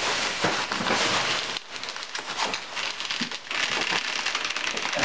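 Plastic bubble wrap crinkling and rustling as it is pulled off a cardboard box, a dense crackle of small clicks that eases briefly under two seconds in and then carries on.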